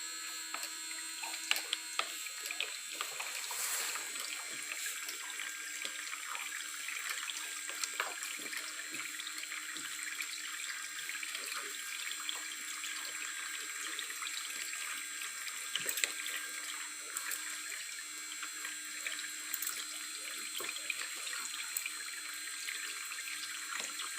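Water running steadily from a tap into a sink, with scattered small splashes and drips, as a cockatiel's bath.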